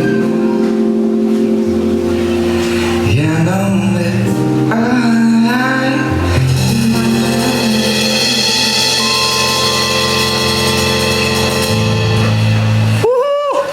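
Live pop band playing held chords over a bass line, with a singer's voice gliding through notes; the music breaks off sharply near the end.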